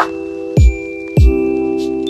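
Background music: bell-like chime notes over held chords, with two deep falling bass hits about half a second apart near the middle.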